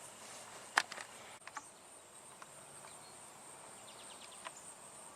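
Faint outdoor ambience: a steady high insect drone, with a few short sharp clicks, the loudest a little under a second in.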